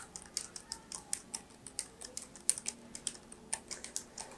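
Typing on a Keychron K3 low-profile mechanical keyboard fitted with red (linear) switches: a quick, irregular run of light key clicks, several a second.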